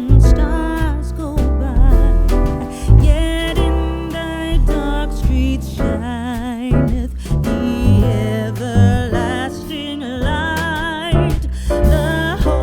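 Background music: an upbeat song with a sung vocal line over bass and a steady beat.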